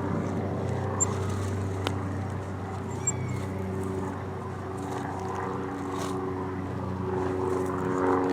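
A motor engine drones steadily in the background, its pitch shifting slightly about halfway through.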